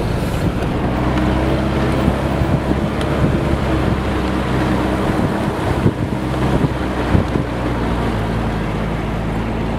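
Off-road vehicle running over a rough dirt track, heard from inside: steady engine hum and tyre and road rumble, with wind buffeting the microphone and a few brief jolts.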